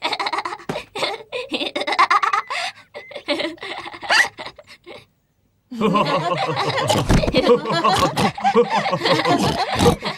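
Several cartoon characters laughing together. The laughter breaks off in a short silence about five seconds in, then starts again louder.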